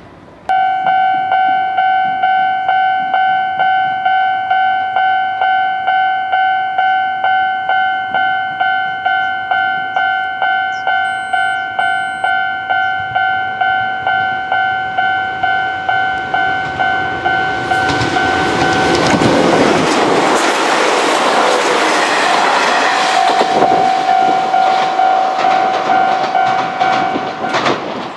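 Japanese level-crossing alarm ringing in a steady repeated electronic clang, just under two strikes a second, starting abruptly about half a second in. About 18 seconds in, an Izuhakone Railway Sunzu Line train passes over the crossing with wheels clattering over the rail joints. The alarm stops just before the end.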